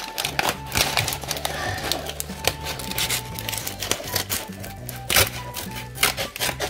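Background music with a steady bass line, over repeated clicking and crackling of a plastic toy wrapper being cut open and handled.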